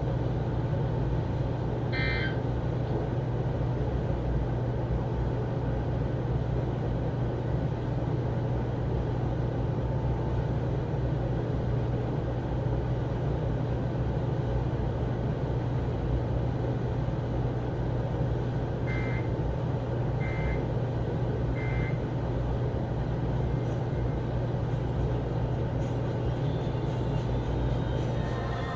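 Steady low hum and hiss of weather-radio dead air. About two-thirds of the way in come three short digital squawks, about a second and a half apart: the EAS end-of-message code that closes the alert.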